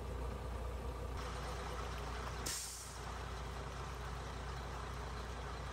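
Water gushing from a mobile pump's discharge hose into a flooded street gutter over a steady low engine hum, with a brief hiss about two and a half seconds in.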